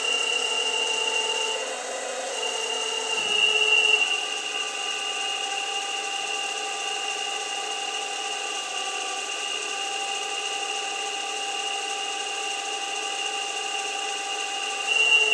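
Model excavator's hydraulic pump running with a steady high whine, its tone and load shifting as the boom and arm cylinders move. It gets louder for a moment about three seconds in and again near the end. Pump speed and hydraulic pressure are set below maximum for first tests.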